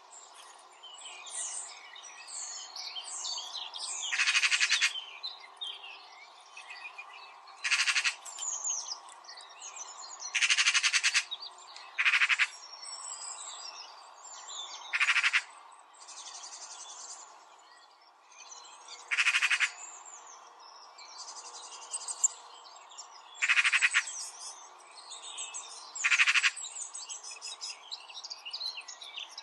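Birds chirping and calling in a steady chorus, with a louder harsh, buzzy call repeating every three to four seconds, each lasting about half a second to a second.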